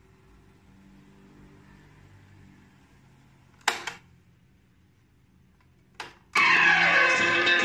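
Two sharp mechanical clicks of a Sony boombox's cassette piano keys being pressed, the first about halfway through and a smaller one near the end; right after the second, music starts playing loudly through the boombox's speakers.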